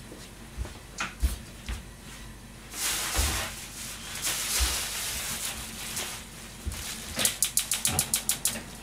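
Plastic bag rustling and crinkling as it is handled, with a few soft knocks near the start and a quick run of about a dozen crackles near the end.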